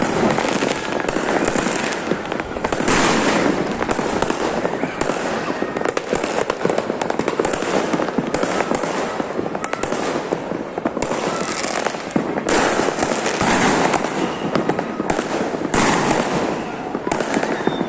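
Fireworks going off continuously, a dense, unbroken crackle of many overlapping bangs and pops.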